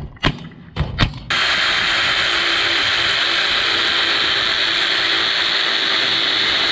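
Two sharp knocks, then a power tool starts about a second in and runs loudly and steadily without changing speed.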